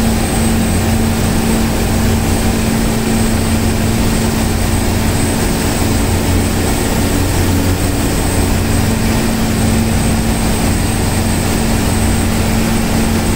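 Sea Ray cruiser running at speed on open water: a steady engine drone and hum under a constant rush of wind.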